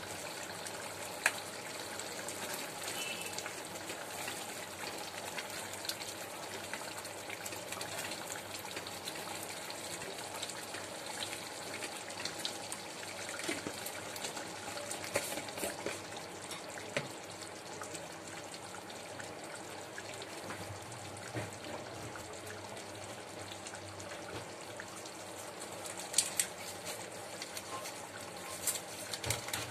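Watery potato and makhana curry simmering in a steel kadhai on a gas stove: a steady bubbling with scattered small pops and clicks.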